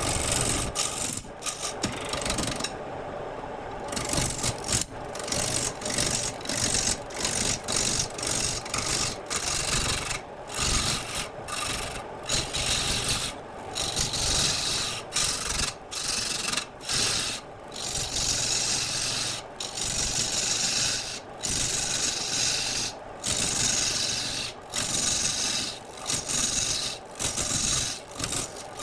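Turning tool cutting into wood spinning on a lathe: a rasping cut repeated in strokes of a second or two, with short breaks between them.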